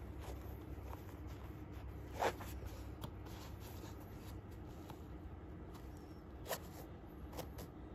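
Hands handling a Norda 001 trail running shoe and its laces in the box: a few short rustles and scrapes, the loudest about two seconds in and another near six and a half seconds, over a faint steady low hum.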